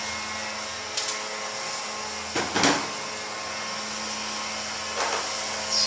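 Steady machine hum running throughout, with a few clicks and knocks of parts and tools being handled: a small one about a second in, a louder pair midway, and two more near the end.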